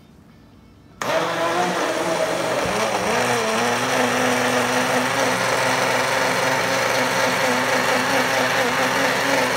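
Hamilton Beach personal blender switched on about a second in, its motor running steadily as it blends a fruit smoothie in the jar. Its pitch wavers and rises briefly just after it starts, then holds steady.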